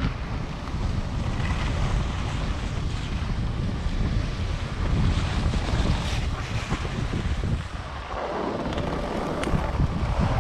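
Wind noise on a GoPro microphone while skiing downhill, mixed with the scrape and hiss of skis over packed snow. The low wind rumble eases about eight seconds in, as the skier slows, and the ski scraping stays.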